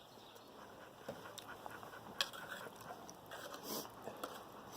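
Faint chewing of a mouthful of omelet, with a few small sharp clicks and a short soft rustle near the end.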